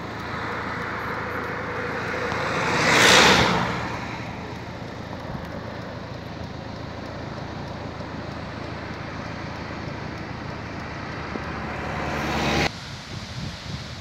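A car passes by on a mountain road about three seconds in, its noise swelling and then fading, over steady road and outdoor noise. Near the end the noise rises again and cuts off suddenly.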